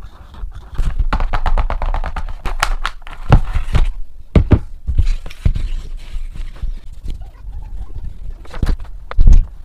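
Paper and a cardboard box of oil pastels being handled on a tabletop: rustling with a dense run of clicks, then several sharp knocks, the loudest near the end, as the box and pastels are moved and set down.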